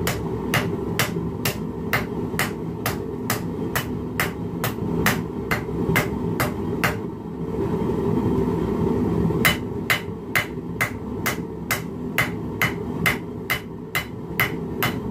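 Hand hammer striking steel held in tongs on the anvil face of a bench vise, a rapid, regular run of ringing blows at about two and a half a second. The blows stop for a couple of seconds midway, then resume. A steady low rumble runs underneath.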